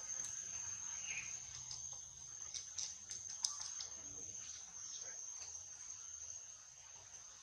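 Steady high-pitched insect drone with scattered faint clicks and a brief chirp about a second in.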